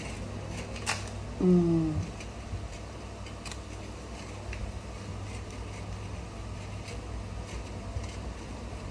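Paper baking cup being peeled off a brownie cupcake by hand, with faint crinkles and small clicks over a steady low hum. There is a sharp click about a second in and a short hummed "mm" just before two seconds.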